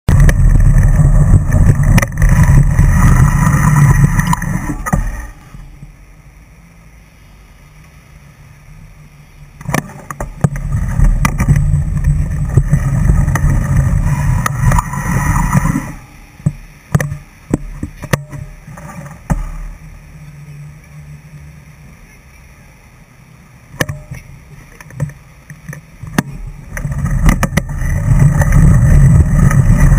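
Motor traffic passing through a road tunnel, an echoing rumble that comes in waves: loud at first, dropping away after about five seconds, swelling again from about ten to sixteen seconds, then quieter with a few sharp clicks before building up again near the end.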